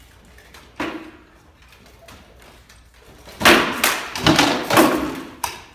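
Sword blows landing on wooden shields and armour: a single knock about a second in, then a quick flurry of about five heavy strikes near the end.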